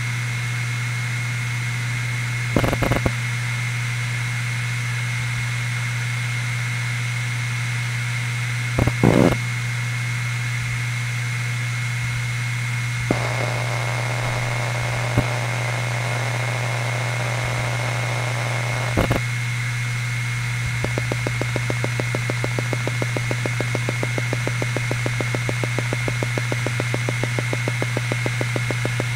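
HGST Deskstar NAS 4TB 7200 rpm five-platter hard drive spinning with a steady hum and a thin high whine, with a few louder head-seek clunks while idle. About 13 s in, busier head activity starts as the drive is quick-formatted. From about 21 s a rapid, even chatter of seek ticks runs on under read/write benchmark load.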